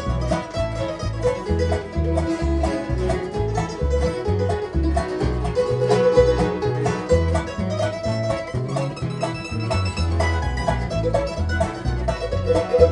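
Bluegrass band playing an instrumental break between sung verses: banjo and guitar picking over steady, evenly paced bass notes.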